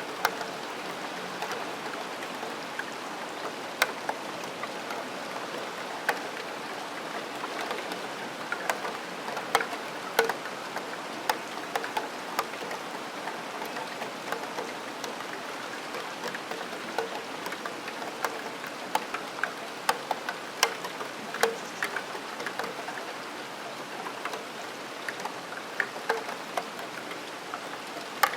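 Rain falling steadily, with single drops striking a steel window sill in irregular sharp ticks that stand out from the even patter.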